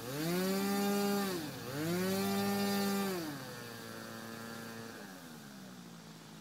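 Small RC model airplane engine running at high revs, its pitch dropping sharply and coming back up twice, then throttled down to a lower run about three seconds in and lower again near the end.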